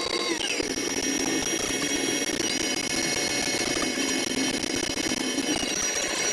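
Combine harvester running steadily while cutting corn, a mechanical hum with several high whining tones that slide down in pitch about half a second in and then hold steady.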